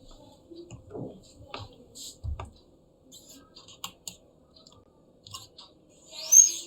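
Small screws and a precision screwdriver clicking and ticking against a laptop's chassis during reassembly. There is a low thump about two seconds in, and a brief louder scrape with a short rising squeak near the end.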